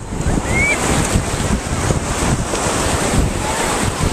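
Small waves of the Gulf surf washing in around the shallows, with heavy wind buffeting the microphone as a steady low rumble.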